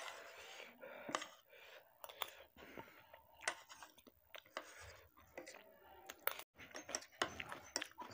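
Faint, irregular clicks and scrapes of a metal fork and spoon against a plate of rice and curry during eating.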